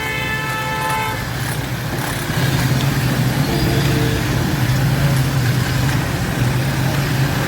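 Street traffic: a vehicle horn held for about a second at the start, a short fainter toot a few seconds later, over a steady low engine hum.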